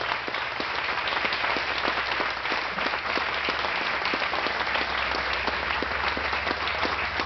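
Audience and people on stage applauding steadily: many hands clapping at once.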